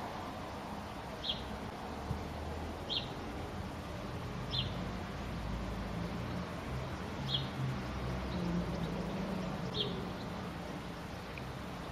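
A small bird giving short, high chirps, one every second or two, over a steady low hum in the background.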